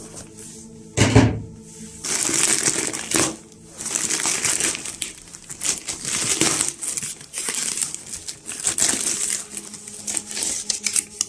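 Plastic courier mailer bag being torn open and handled, its film crinkling and crackling in repeated spells. There is one dull thump about a second in.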